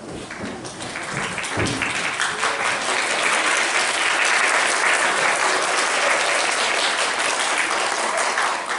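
Audience applauding: dense clapping that builds over the first second or two and eases off near the end.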